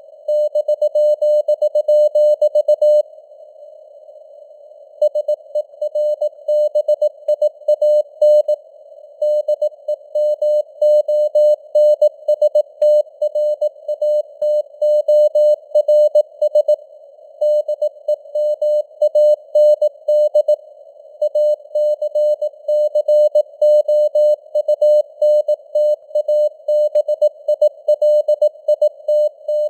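Morse code (CW) sent at 18 words per minute as a single mid-pitched beep keyed on and off in dots and dashes, over a narrow band of simulated radio hiss. There is a longer pause about three seconds in, between words.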